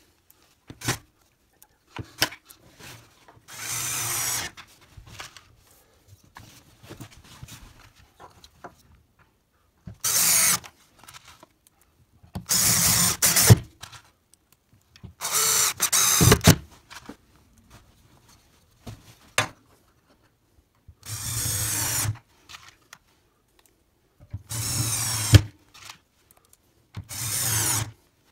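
Cordless drill-driver driving screws through plastic cabinet-leg brackets into a chipboard panel, in about seven short bursts of roughly a second each, with handling clicks between them.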